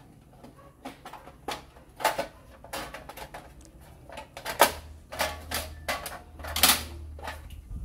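Irregular clicks, knocks and rattles of an opened CCTV DVR and its case being handled, the sharpest knocks about halfway through and near the end.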